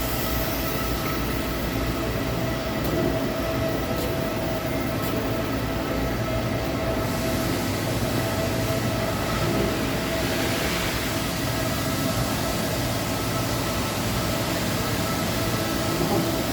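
Parpas Brave floor-type CNC horizontal boring mill running under power on a simple facing cut: a steady machine hum with several steady tones over a broad rumble, and a brief hiss about ten seconds in.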